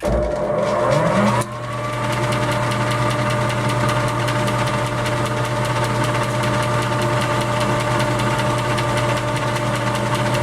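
A machine tool's electric motor starting up. Its whine rises in pitch for about a second and a half, then it runs at a steady speed with an even hum.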